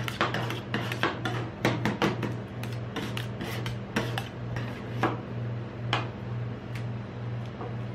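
Two metal spatulas chopping and scraping ice cream on a stainless steel cold plate: quick clacking and scraping strokes, dense at first and sparser later, with a sharp clack about five and six seconds in. A low pulsing hum runs underneath.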